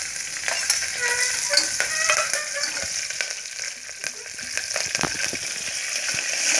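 Tempering of garlic, curry leaves and dried red chillies sizzling in hot oil in an aluminium pressure cooker. A steel spoon clicks and scrapes against the pot as it is stirred.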